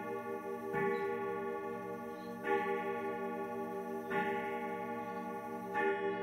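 A German mechanical grandfather clock striking the hour: a hammer hits a deep-toned gong rod four times, about 1.7 seconds apart, each stroke ringing on into the next.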